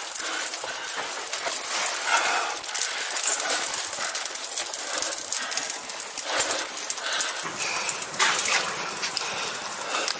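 A person crawling through a tight cave squeeze: gritty scraping and shuffling of clothing and a willow pack basket over rock and gravel, with hard breathing swelling every second or two.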